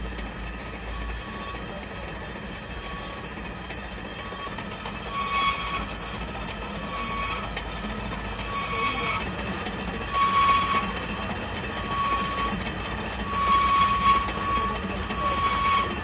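Lathe boring an inside bore, the cutting tool squealing against the metal: a steady high whine, with a lower squeal that comes and goes about once a second and lasts longer near the end.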